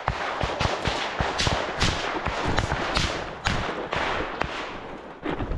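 Leaves and branches rustling with twigs cracking and snapping as someone pushes through dense undergrowth: a steady rustle broken by sharp cracks at an irregular two or three a second.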